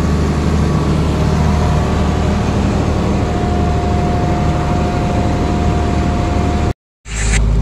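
Farm tractor engine running steadily as it pulls a disc harrow along a dirt road. The sound cuts out for a moment near the end and comes straight back.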